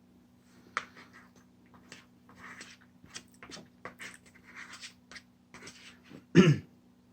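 A fork or spoon scraping and clicking against a plastic food tray in a run of short irregular scratches, with one loud, brief falling vocal sound near the end.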